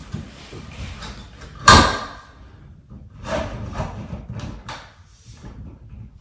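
A round LED ceiling light fixture being handled overhead: one sharp knock or snap just under two seconds in, then a run of small clicks and rustling.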